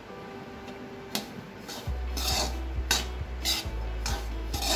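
Metal spatula stirring and scraping dry roasted wheat-flour churma crumbs around a metal kadhai, a string of scrapes and light taps of metal on metal, the mix stirred off the heat so it does not stick or darken. A low hum comes in about two seconds in.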